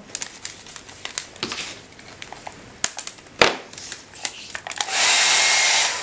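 Handling clicks and tape crackling on a hair dryer converted to a 12-volt battery fan, with one sharp click a little after three seconds. About five seconds in, its 12-volt motor starts on battery power and the fan runs: a steady rush of air with a faint whine.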